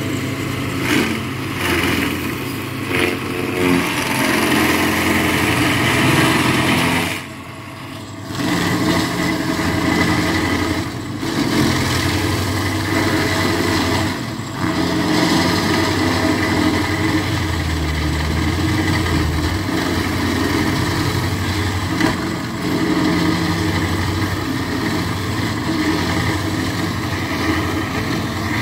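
Engine of a small tracked stump grinder running hard while its spinning cutting wheel grinds into a tree stump. The engine note sags under load now and then. There is a brief lull about seven seconds in.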